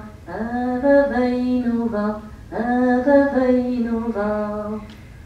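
A woman's voice singing two long, held phrases, each about two seconds, heard as film soundtrack played through a room's loudspeakers.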